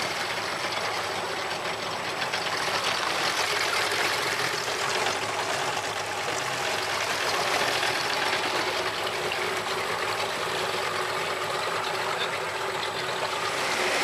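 Outboard motor running steadily as the boat moves along, mixed with the rush of water along the hull.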